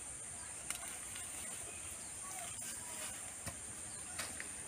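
Steady high-pitched drone of crickets or similar insects, with a few faint ticks and rustles from potted plants and loose soil being handled.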